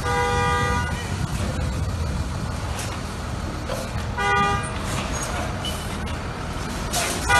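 Vehicle horn honking twice, a blast of almost a second at the start and a shorter one about four seconds in, over steady low engine rumble and street noise as garbage trucks dump their loads.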